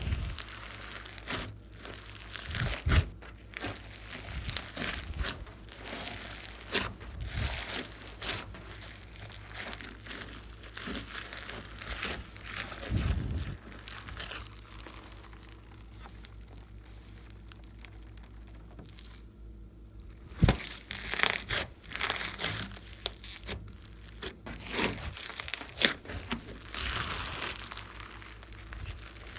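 Glossy slime being squished, stretched and kneaded by hand, giving a string of sticky crackles, pops and clicks. It goes quieter for a few seconds about halfway through, then picks up again.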